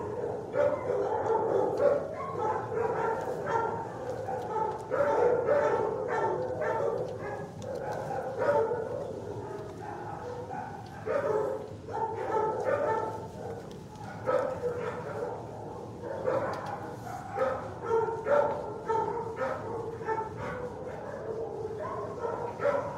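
Dogs barking in a shelter kennel ward: a continuous din of many short, overlapping barks with no break.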